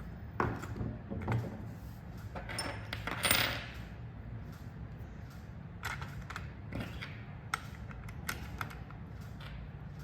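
Small metal and plastic curtain-track parts clicking and knocking as they are handled and fitted, with a short metallic ringing clink about three seconds in, over a steady low hum.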